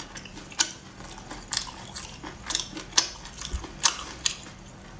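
Close-up chewing of chewy cat's eye snail meat: about six sharp wet clicks and smacks spread over a few seconds.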